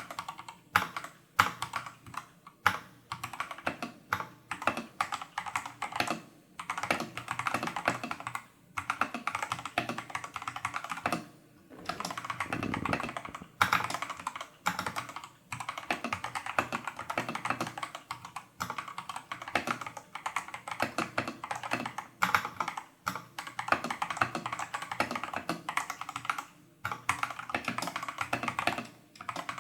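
Fast, continuous typing on a Tester68 custom mechanical keyboard with stock, factory-lubed Holy Panda clone tactile switches and XDA-profile keycaps. Quick runs of keystrokes break for short pauses every second or two.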